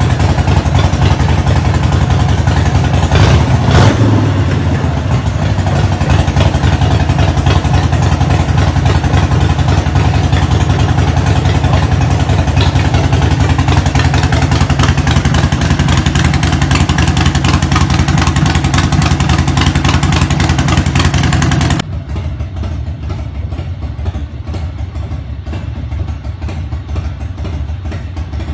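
Harley-Davidson Sportster Seventy-Two's air-cooled 1200 cc V-twin idling at its stock idle speed, loud and close, with a brief swell about four seconds in. About three-quarters of the way through it cuts to the same engine idling more quietly and further off, now fitted with an Engine Slow idle-speed adjuster.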